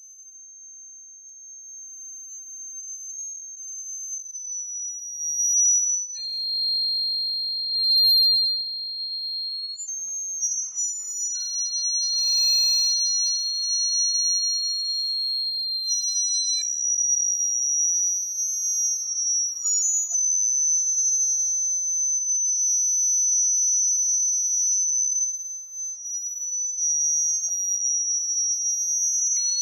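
High-pitched, pure electronic tones held steadily as a soundtrack drone, fading in over the first several seconds. A second, slightly lower tone comes in about six seconds in, and the tones waver a little in pitch.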